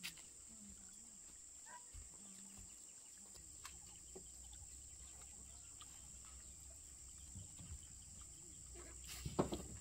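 Faint outdoor rural ambience: a steady high insect drone with scattered faint ticks and bird chirps. A louder sound begins near the end.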